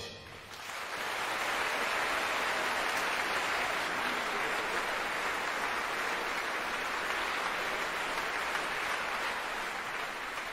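Sustained applause, a steady even clatter that swells in over the first second and eases slightly near the end.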